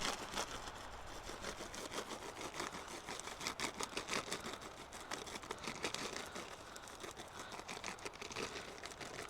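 Plastic food packet crinkling and rustling in the hands, with many small irregular clicks, as fudge pieces are shaken out over a crumble topping.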